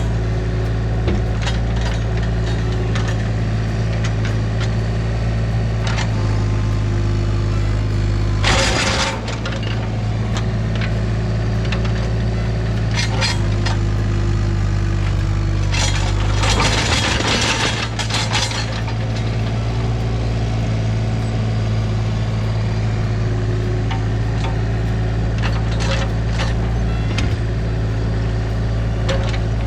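The engine of a compact earthmoving machine running steadily under work, with scattered clanks and knocks. A short loud rushing burst comes about nine seconds in, and a longer one of about two seconds around the seventeen-second mark.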